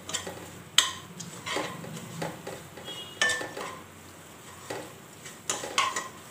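Spatula stirring thick fried masala paste in a non-stick wok, scraping and knocking against the pan in irregular strokes. The sharpest knock comes about a second in, and there is a brief ring of a clink around the middle.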